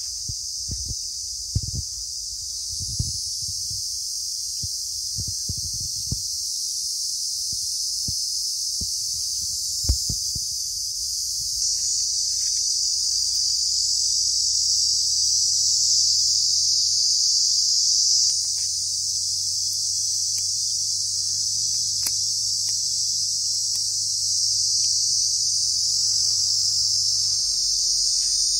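Steady, loud high-pitched drone of insects, with a few short low thumps in the first ten seconds.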